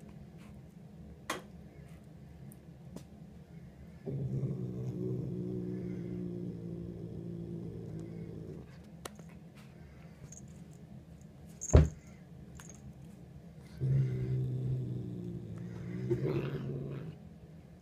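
Domestic cat growling low over a mouse it has caught, twice, each growl lasting about four seconds. A single sharp click falls between the two growls.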